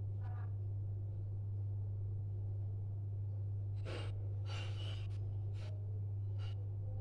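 A steady low hum, with a few short soft hissing or rustling noises from about four seconds in.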